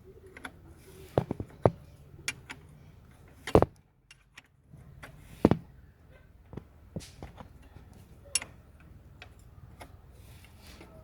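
Irregular metallic clicks and clinks of a wrench working the alternator belt adjuster bolt as the belt is tightened, with two louder knocks about three and a half and five and a half seconds in.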